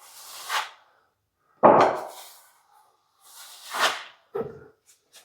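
Plastering trowel spreading pre-mix filler over a ceiling patch: three scraping, swishing strokes with a shorter one near the end.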